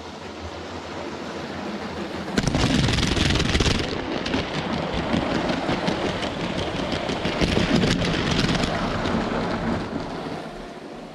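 Motorized LEGO trains rolling along plastic LEGO track with a rapid clattering rumble. It gets suddenly louder about two and a half seconds in as a train runs close by, then fades near the end.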